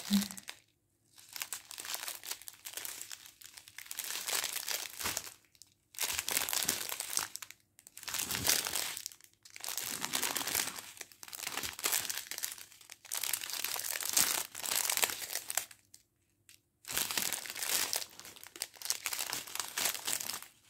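Clear plastic sachets of round diamond-painting drills crinkling as they are handled and pulled apart, in bursts of a few seconds separated by brief pauses.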